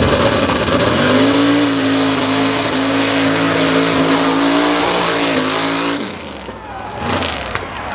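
Unlimited mud truck's race engine, running through open exhaust headers, revving up as it launches about a second in and held high at full throttle, then dropping off about six seconds in.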